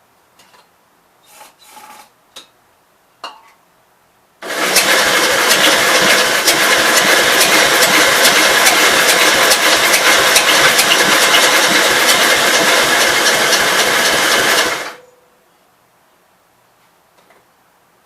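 Electric starter cranking the Gravely L's single-cylinder engine, a fast, steady mechanical churn, for about ten seconds before stopping abruptly. A few light clicks and knocks come before it.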